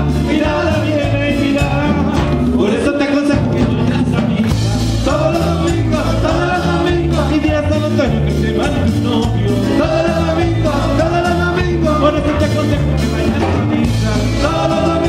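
Live dance band playing Latin dance music, with a singer over a steady, repeating bass and drum beat.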